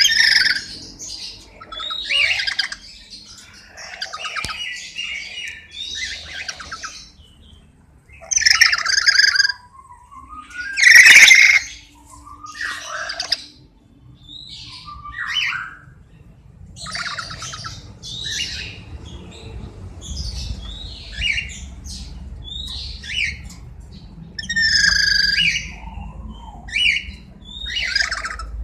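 Sulphur-crested cockatoos calling with a string of harsh squawks and screeches, one every second or two, the loudest about eight and eleven seconds in.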